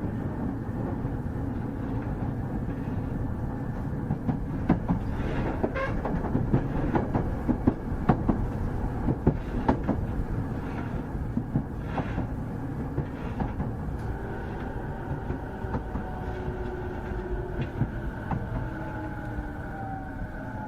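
JR 209 series 2000-subseries electric train heard from inside the car, running with a steady rumble and wheels clacking over rail joints. From the middle on, the Mitsubishi IGBT-VVVF inverter whine comes in, its tones slowly falling in pitch near the end as the train slows.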